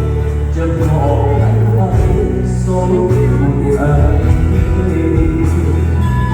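Live band music with a singer, a steady bass under the voice.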